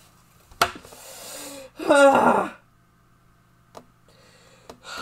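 A man crying out in anguish without words: a sharp gasp, a breathy moan, then a loud drawn-out sob. Two faint knocks follow near the end.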